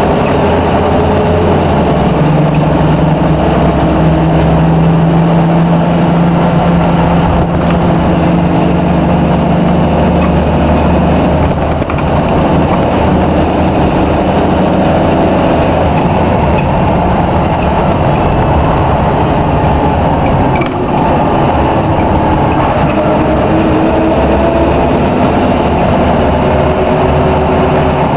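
Scania K93CRB bus's six-cylinder diesel engine under way, heard from inside the saloon over road noise. The engine note shifts in pitch several times, with brief dips in level a little before halfway and about three-quarters through.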